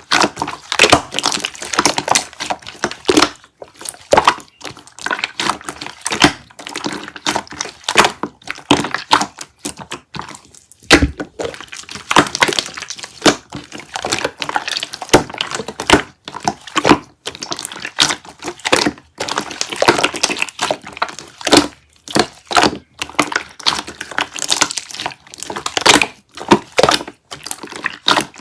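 Light purple slime being squished and pressed by hand, making a dense run of irregular sticky clicks and pops.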